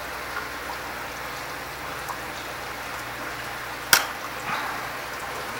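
Water running steadily out of the leaking seam between a polycarbonate tank window and the bowed plastic tank wall. A few faint ticks, and one sharp metal click about four seconds in from the wrench and vise grips on the window's bolts.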